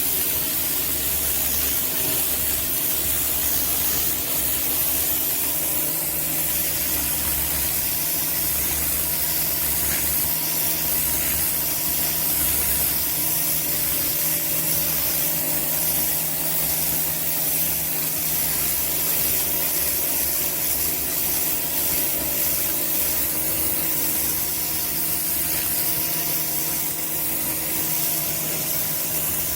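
Kärcher K2 electric pressure washer running steadily: the hiss of the high-pressure water spray over the even hum of its electric motor and pump.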